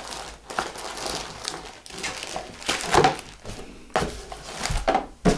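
Plastic packaging crinkling and rustling as items are handled and lifted out of a cardboard box. There are louder rustles about three seconds in and again near the end.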